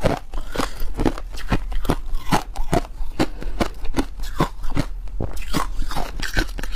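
Teeth biting and crunching through a frozen block of crushed ice: a quick run of sharp, crackling crunches, about three or four a second.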